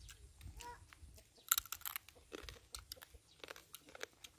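Roasted field crabs' shells cracking and crunching as they are broken open and picked apart by hand, with chewing; the loudest crack comes about a second and a half in.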